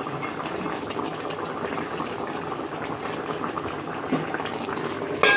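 Pot of vegetable stew bubbling steadily at a simmer on the stove, with a sharp metal clank near the end.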